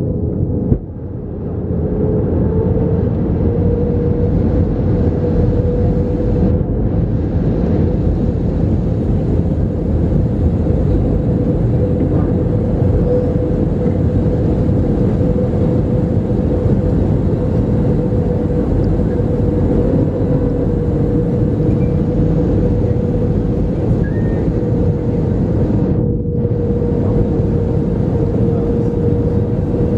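Steady cabin noise of an Airbus A321 in flight: the constant drone of its jet engines and rushing air, with a steady hum running through it. The noise dips briefly about a second in.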